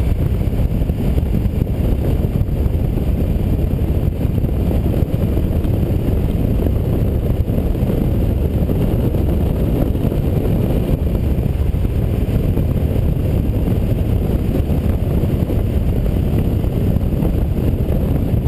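Steady wind rush and engine drone from a KTM 990 motorcycle cruising at highway speed, picked up by a camera on the rider's helmet with the wind buffeting the microphone.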